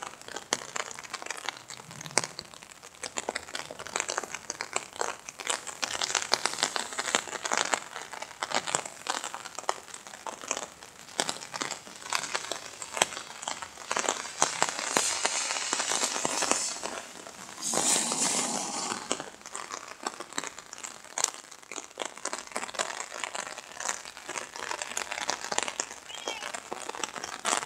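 Raindrops pattering on an umbrella, heard from underneath it as a dense, irregular crackle of taps, with a brief louder rush of noise about eighteen seconds in.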